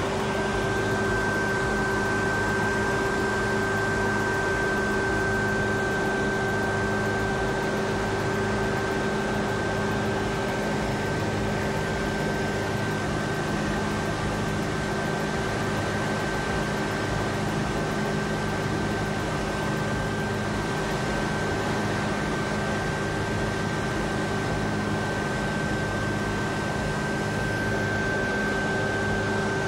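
Steady mechanical drone with a constant high whine over it and a low, slightly pulsing hum, unchanging throughout.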